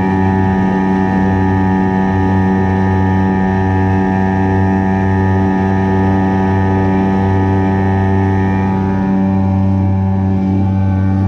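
HangKai 3.6 HP two-stroke gas outboard motor running steadily under way, pushing a kayak along, a loud drone holding an even pitch. The motor is new and still being broken in.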